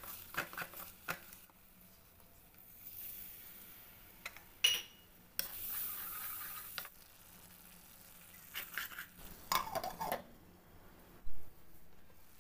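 Wooden spatula stirring and scraping green chillies in a nonstick pan, with a frying hiss in the middle of the stretch as yogurt goes in. A single metallic clink comes a little before halfway, and near the end a glass lid is set down on the pan with a knock.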